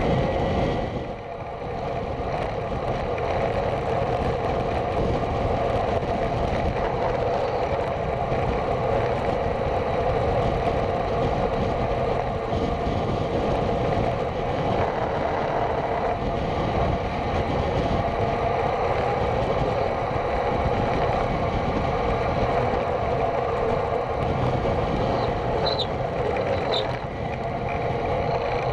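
Steady wind rush and tyre noise from riding a road bicycle on tarmac, picked up by a bike-mounted camera's microphone, dipping briefly about a second in.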